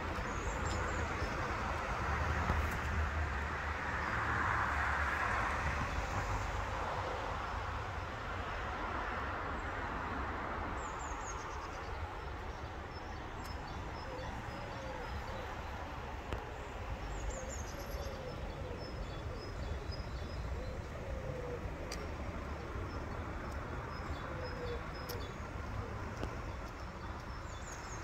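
Outdoor dawn ambience: a steady low rumble of distant traffic that swells for a few seconds near the start, with faint, scattered songbird chirps.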